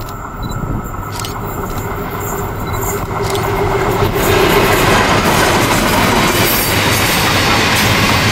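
Pacific National NR class GE diesel-electric locomotive approaching and passing at the head of a loaded ore train, getting louder as it comes close. Then the ore wagons roll past with a steady rumble and clatter of wheels on the rails.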